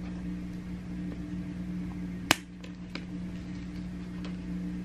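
A steady low mechanical hum, with one sharp click a little past two seconds in and two fainter ticks soon after.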